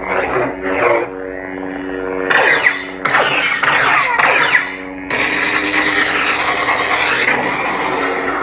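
Lightsaber sound board (CFX) playing a sound font through a small speaker: a steady humming drone with swing sounds rising and falling in pitch as the hilt is moved. There is a louder, harsher stretch from about five seconds in.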